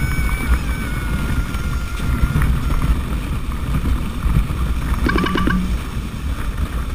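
Luge sled sliding down a packed-snow run: a continuous low rumble of the runners on snow, with wind buffeting the microphone.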